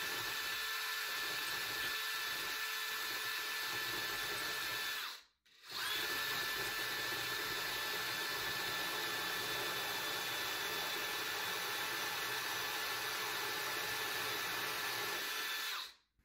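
Cordless drill with a diamond bit running steadily with a motor whine as it grinds a starter hole into wet lava rock. It stops briefly about a third of the way in, starts again, and stops near the end.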